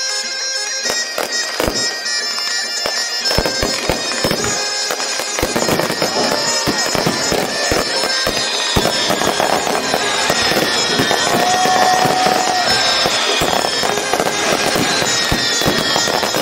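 Fireworks bursting and crackling in quick irregular pops, with whistling shells gliding down in pitch every couple of seconds, over music with steady held tones.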